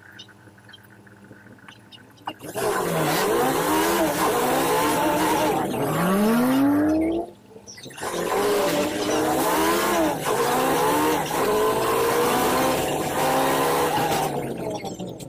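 City bus engine and drivetrain heard from inside the cabin: quiet at first, then about two and a half seconds in it comes in loud, its pitch rising and falling over and over as the bus speeds up and eases off. A little past halfway it drops away briefly with a deep falling tone, then picks up again.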